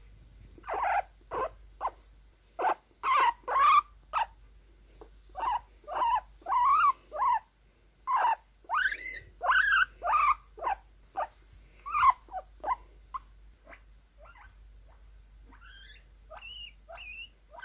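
Guinea pig squeaking and wheeking: a rapid run of short, high squeaks, many rising in pitch, that grows sparser and fainter in the last few seconds.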